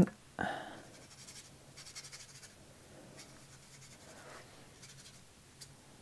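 Faint scratchy strokes of a watercolour brush working paint on watercolour paper, with one short soft sound about half a second in.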